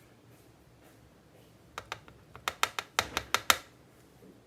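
A quick run of about a dozen sharp, light clicks from the small metal parts of a Kwikset Gen 2 lock cylinder being handled as it is taken apart. The clicks start about two seconds in and stop abruptly about a second and a half later.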